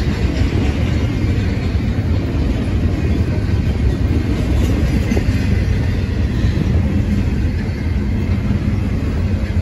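Double-stack intermodal container train passing, its well cars rolling steadily over the rails with a continuous low-heavy running noise.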